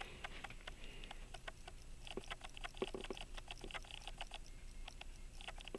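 Illinois Springfield Watch Co. 18-size pocket watch movement ticking quickly and faintly, about five ticks a second, with a few light knocks of handling about two seconds in. The freshly cleaned movement runs, but not well.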